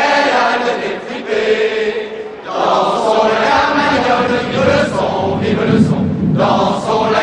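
A large crowd of voices chanting together in unison, with a short lull about two and a half seconds in.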